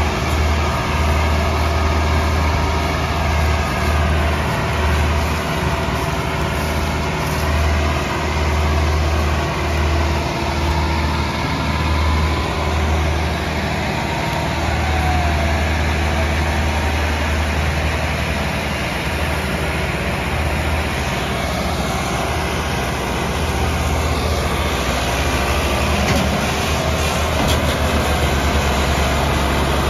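Several diesel tractor engines, the Massey Ferguson 385's 85 hp four-cylinder among them, running steadily under heavy load while pulling a loaded sugarcane trolley, with a deep, pulsing throb.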